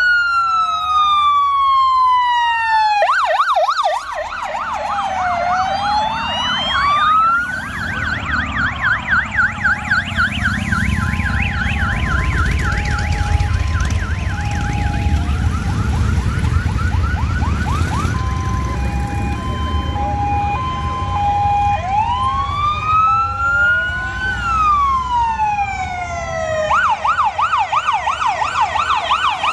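Emergency-vehicle sirens, several at once, cycling through slow rising-and-falling wails, rapid yelps and an alternating two-tone note, over the low rumble of a slow column of vehicles that builds from about four seconds in.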